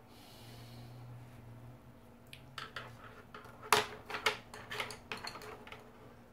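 Wooden coloured pencils clicking and clattering against one another as a hand picks through them on a tabletop: a run of light, irregular clicks lasting about three seconds, the loudest in the middle.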